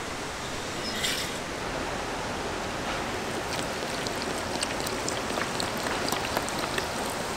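Makgeolli fizzing: a short burst of hiss about a second in, then light, irregular crackling of small clicks over a steady hiss.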